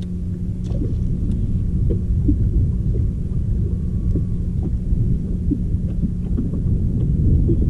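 Low rumble of wind buffeting the camera's microphone on an open boat deck, with a steady low hum running through it that stops shortly before the end.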